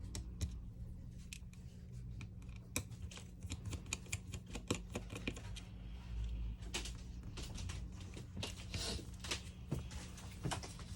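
Irregular light clicks and taps of small hand tools against the phone's plastic and metal parts during disassembly, coming thicker past the middle, over a steady low hum.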